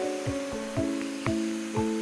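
Background music with a steady beat of about two a second under sustained chords.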